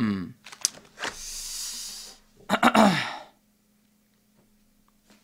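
A man's wordless vocal sounds close to the microphone: a short grunt falling in pitch, a long breathy hiss, then a second falling groan about two and a half seconds in.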